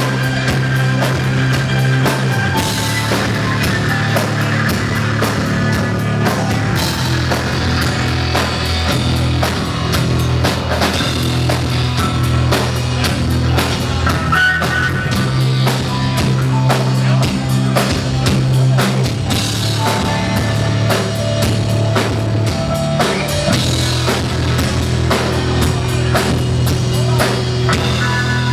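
Rock band playing: a drum kit beats steadily over guitar and long, held bass notes.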